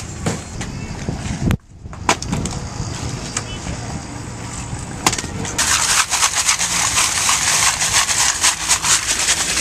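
Charcoal and ash being shaken in a large metal sieve: a loud, continuous dense rattle starting about five and a half seconds in. Before it, a few sharp knocks of firewood being handled.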